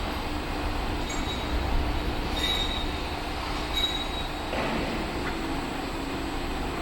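Electric welding rotator running, a steady hum of its drive under the rumble of its rollers turning, with two brief high squeaks from the rollers partway through.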